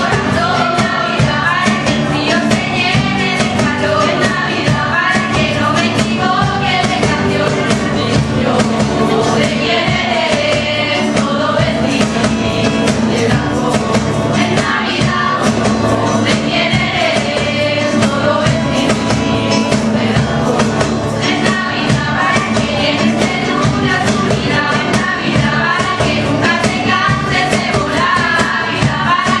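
A mixed-age choir of mostly female voices singing in unison with two acoustic guitars strumming.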